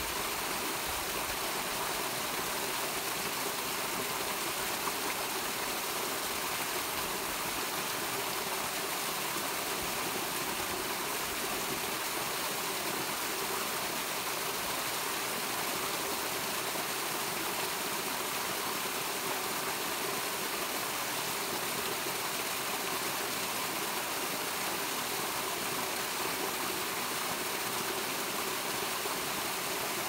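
Small waterfall spilling over a rock ledge into a shallow pool: a steady rush and splash of falling water.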